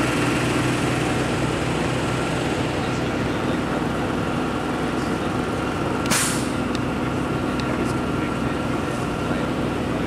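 A vehicle engine idling steadily, with one brief sharp noise about six seconds in.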